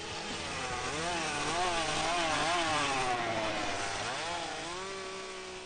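Stihl two-stroke chainsaw revving up and down as it cuts into wood, its pitch rising and falling several times, then fading away near the end.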